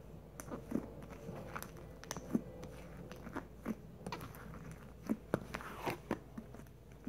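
Fluffy slime being poked and pressed with the fingers in a plastic tub, giving irregular small squishy pops and clicks.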